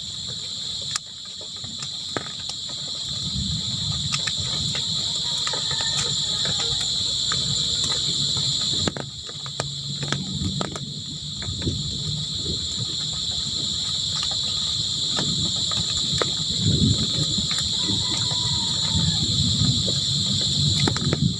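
Crickets chirring in a steady, unbroken chorus, with an uneven low rumble underneath that grows louder in the second half.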